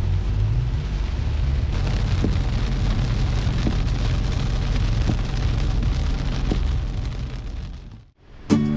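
Heavy rain on a moving car's windshield over a steady low road rumble, heard from inside the cabin, with a faint tick about every second and a half. It fades out near the end, and music begins just after.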